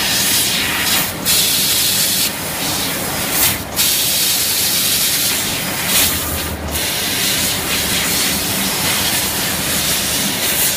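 Steady, loud hiss of the assist-gas jet from a SteelCNC SLII fiber laser cutter's head as it cuts sheet metal, dipping briefly a few times.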